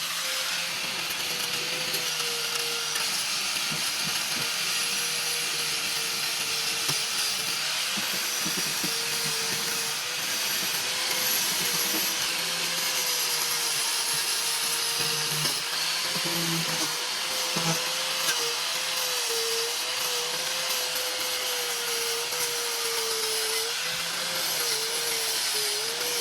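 Electric power sander running against the steel frame of a car, taking off rust: a steady whir whose motor pitch wavers up and down as the tool is pressed onto the metal, more in the second half.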